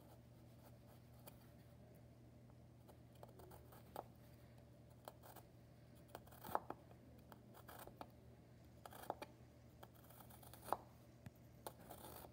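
Small kitchen knife slicing a garlic clove paper-thin on a plastic cutting board: faint, irregular taps and scrapes of the blade, a few seconds apart, over a low steady hum.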